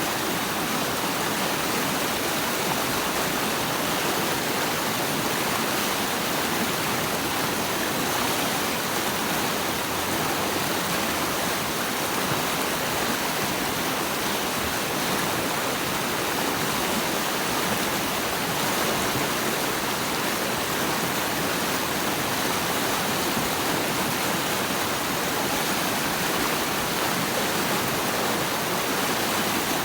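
Steady rushing water, an even unbroken wash with no separate splashes or other sounds.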